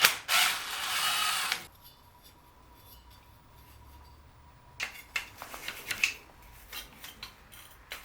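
A hiss lasting about a second and a half, spray lubricant being applied to a seized furnace draft inducer motor, followed a few seconds later by a run of light clicks and rattles of hand tools and metal parts being handled.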